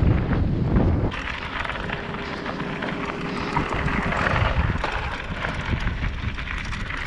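Wind buffeting the microphone of a camera on a downhill mountain bike, with the tyres crunching and rattling over a loose gravel trail. About a second in, the low rumble of the wind gives way to a brighter, crackling gravel noise.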